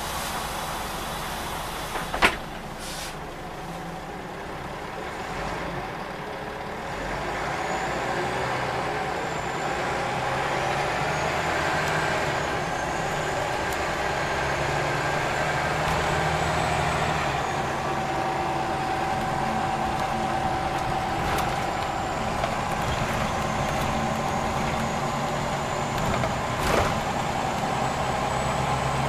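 Scania OmniLink CL94UB city bus heard from inside the passenger cabin as it pulls away and gathers speed. The engine note grows louder over several seconds and steps up through the gears, with a faint high whine wavering above it. A single sharp knock comes about two seconds in.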